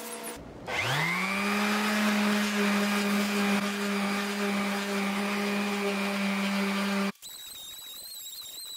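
Electric random orbital sander spinning up about a second in, then running steadily at one pitch as it sands cured epoxy fairing compound. About seven seconds in the sound cuts to a quieter, high-pitched whine.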